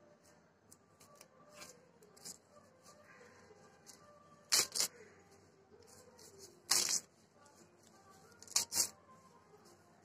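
A few short, sharp rustles in three clusters about two seconds apart, over faint voices in the background.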